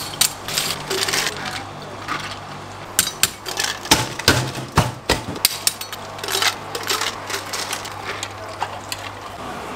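Ice and utensils clinking and knocking as a drink is made: a metal scoop digging through ice and ice knocking into a plastic cup, then a few heavier thuds about four seconds in as a long plunger presses ice and fruit down in the cup. A low steady hum runs underneath.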